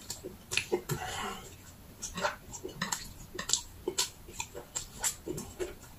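A man chewing food with his mouth open, with wet lip-smacking, and chopsticks clicking against dishes now and then.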